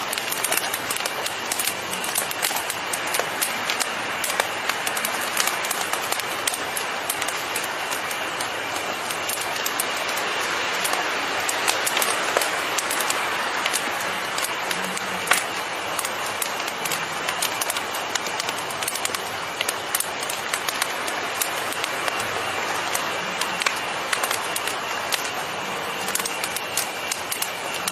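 Fire burning with a steady hiss and frequent sharp crackles and pops; one pop about halfway through is louder than the rest.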